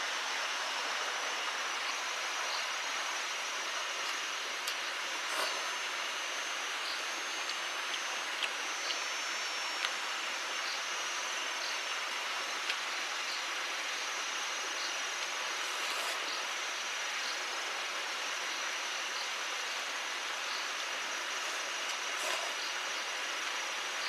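Steady rush of flowing stream water with insects buzzing and chirping in a high, even drone, and one insect ticking about once a second. A few faint clicks.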